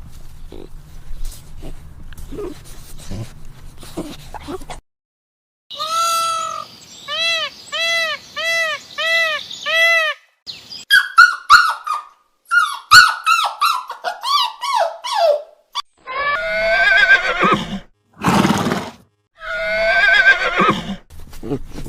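A sequence of different animal calls: first a run of about seven short, evenly spaced pitched calls, then a string of falling pitched calls, then three loud harsh, rasping calls near the end.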